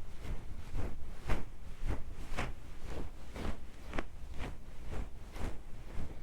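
Close-miked ASMR rubbing or scratching strokes on the microphone, a steady run of short swishes about two a second.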